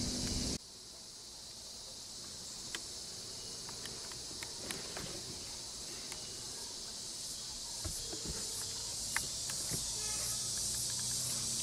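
Steady high-pitched chorus of insects buzzing in roadside jungle scrub, with a few faint clicks scattered through it. A low rumble cuts off about half a second in.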